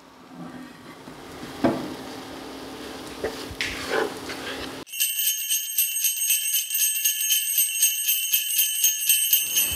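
A wooden spoon stirring stock in a pot, with a few soft knocks. About five seconds in, sleigh bells take over, a louder fast steady jingling that cuts off sharply near the end.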